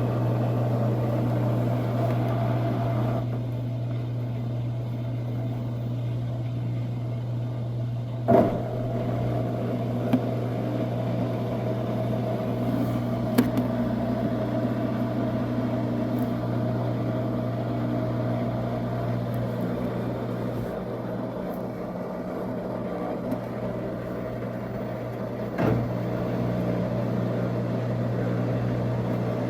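Coin-operated washing machine running with a steady low hum, between draining and the final spin, with a few single clunks from the drum.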